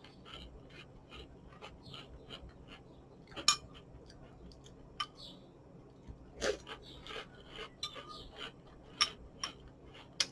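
Irregular light clicks and clinks of a spoon against a cereal bowl while eating Lucky Charms, with a handful of sharper knocks spread through.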